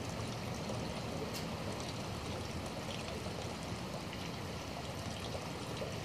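Steady rain with water running and pouring: an even hiss with scattered drips.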